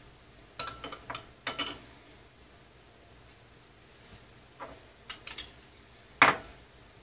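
Butter knife clicking and clinking against a dish while butter is spread on bread: a quick run of about five clicks in the first two seconds, a few more near five seconds, and one loudest clink a little after six seconds.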